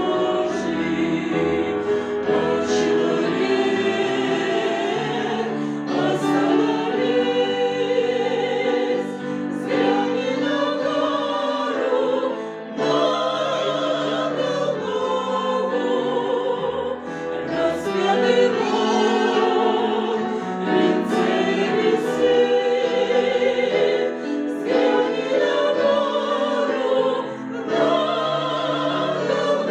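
A mixed choir singing in sustained chords with vibrato, pausing briefly between phrases.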